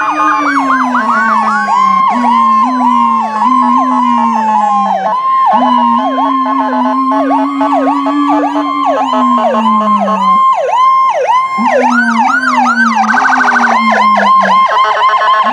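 Several emergency-vehicle sirens sounding at once from the passing ambulance and other emergency vehicles. Rapid yelps and a steady high tone run over a lower tone that rises and falls in long stretches, and about thirteen seconds in one siren switches briefly to a much faster warble.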